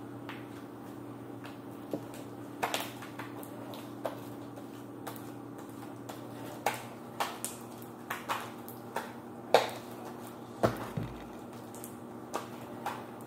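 Irregular light taps and knocks of hands and small objects on a tabletop, about a dozen, some with a brief ring, the loudest about nine and a half seconds in, over a steady low hum.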